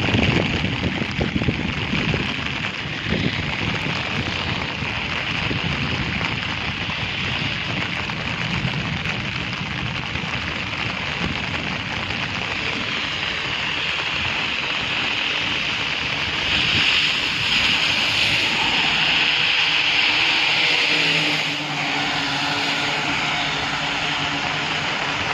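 Steady rain falling in strong wind, an even hiss. A faint low hum joins about two-thirds of the way through.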